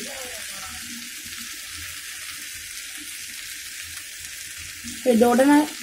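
Chopped onion, tomato, carrot and potato sizzling steadily in hot oil as they sauté in a pan. A short burst of voice cuts in about five seconds in.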